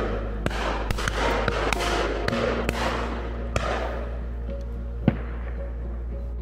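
Background music with held notes, overlaid by several sharp cracks, the loudest about five seconds in.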